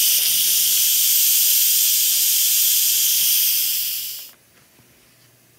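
Instant Pot pressure-release valve venting steam after pressure cooking, a loud steady hiss that fades out quickly about four seconds in once the pressure is let off.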